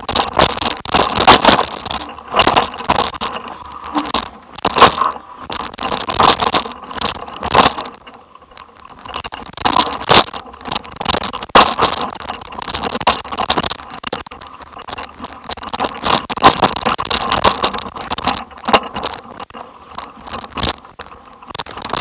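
Continuous jolting rattles, knocks and scrapes of a ride bouncing down a rough, rocky dirt track, easing off for a moment about eight seconds in.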